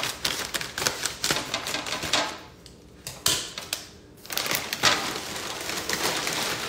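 Plastic chip bag crinkling as scissors cut it open, then blue corn tortilla chips rattling out onto a wooden tray near the end, a dense run of small crackles and clicks with a short lull in the middle.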